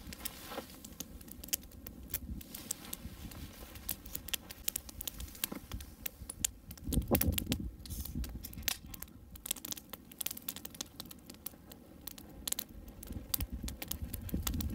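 Campfire crackling and popping in irregular sharp snaps, with a brief patch of low thuds about seven seconds in.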